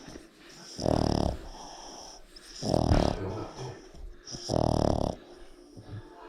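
Sleeping Boston Terrier snoring: three snores, each about half a second long, coming about two seconds apart with each breath.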